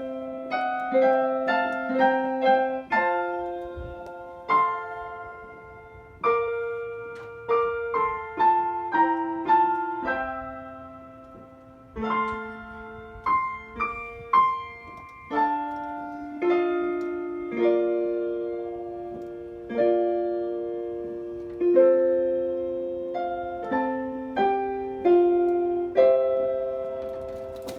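Electronic keyboard played solo in a slow, gentle melody with chords. Each note or chord is struck and left to die away, about one to two a second.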